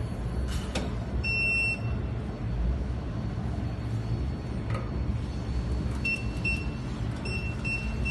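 Jewelry laser welding machine running with a steady low hum. Its buzzer gives one short high beep about a second in, then from about six seconds in a string of short beeps repeats about twice a second.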